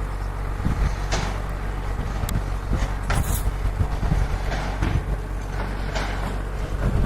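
A steady low engine hum, with short bursts of noise now and then.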